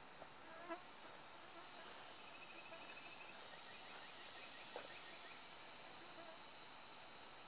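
Steady, high-pitched insect drone that swells in about a second in and then holds, with a faster ticking trill over it for a few seconds in the middle. Two light snaps stand out, one near the start and one past the middle.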